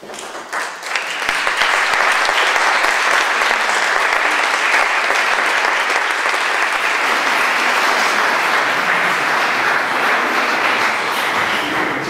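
Audience applauding. The clapping swells within the first second or so, holds steady, and eases slightly near the end.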